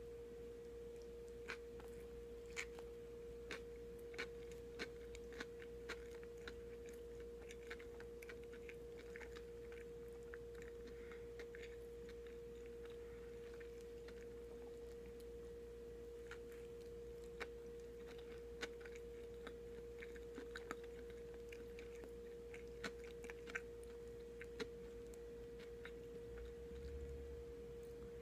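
A person chewing and biting a soft white-bread sandwich, with scattered wet mouth clicks and smacks. Under it runs a steady, faint, high hum.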